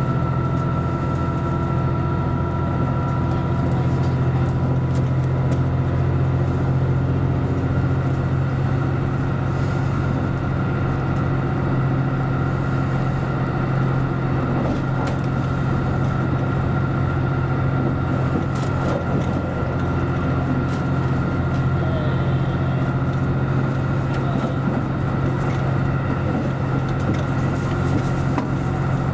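JR Central Series 85 diesel railcar under way, its diesel engines running with a steady low drone, with wheel and rail noise, heard from inside the leading car.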